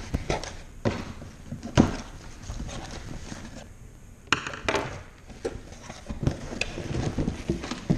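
Cardboard shipping box being opened and handled on a table: a string of knocks and thumps, the loudest about two seconds in, and a short scraping rustle of the flaps a little past halfway.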